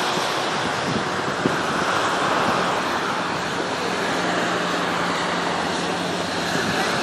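Steady road traffic noise on wet pavement: tyres hissing on the wet road, with a low steady engine hum.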